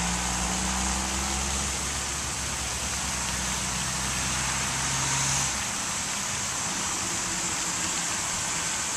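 Steady splashing hiss of a pond fountain's spray falling on the water, with a low motor hum underneath that cuts off about halfway through.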